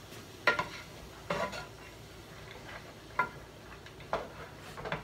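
A cooking utensil stirring and scraping a pan of sautéing cauliflower-rice and vegetable medley, in five or six short strokes about a second apart, over a faint sizzle.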